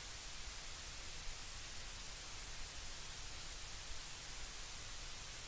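Steady, even hiss of background noise, with no distinct sound standing out.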